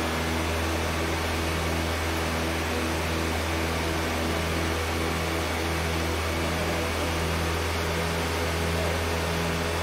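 Freshly rebuilt Land Rover 2.25-litre four-cylinder petrol engine running steadily at a fast idle of about 2000 rpm, held there by the early stage of the choke, on its first run after the rebuild. Its rocker clearances are set a fraction wide, which makes it tap.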